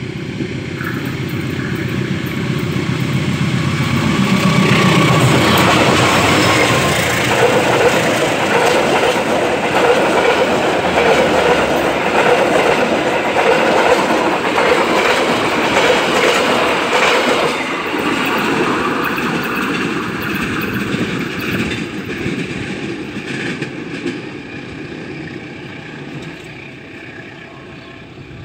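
A diesel-locomotive-hauled KAI passenger train running through a small station at speed without stopping. The locomotive's engine drone grows as it approaches, then the coaches' wheels rush and clatter past close by, loudest through the middle, and the sound fades as the train moves away.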